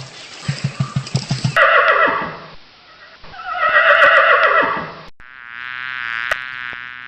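Farm animal calls from different clips in turn: a rapid low pulsing sound, then two loud falling calls, then, after an abrupt cut about five seconds in, a longer wavering call of another animal.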